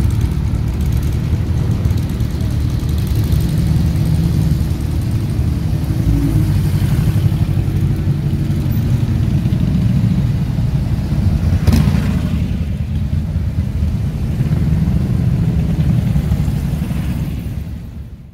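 Deep, steady engine rumble of cars rolling slowly past at low revs, led by an old pickup truck, with slow swells in the sound. There is a single short click about twelve seconds in, and the sound fades out at the end.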